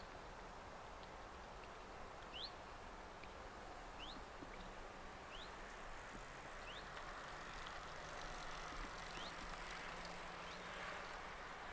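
Faint outdoor background with a bird repeating a short, rising chirp every second and a half or so.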